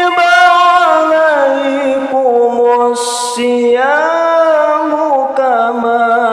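A man's voice reciting the Quran in melodic tilawah style through a microphone, holding long notes that slide and bend in pitch. There is a brief hiss about three seconds in.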